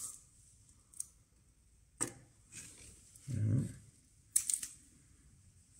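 Adhesive tape being peeled and torn off the freshly cut end of a stainless-steel braided AN4 hose, in a few short rips, about two seconds in and again near the end. A short low hum comes in between.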